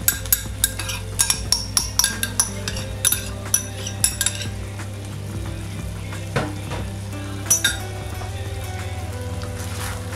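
Beef mince sizzling in a frying pan while a metal spoon taps and scrapes against a bowl, knocking out the last of a tomato-and-cream sauce. The taps come in a quick run over the first few seconds, then twice more, over a steady low hum.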